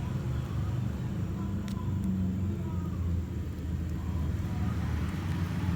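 Steady low background rumble, like road traffic, with two faint light clicks near the start and about a second and a half later.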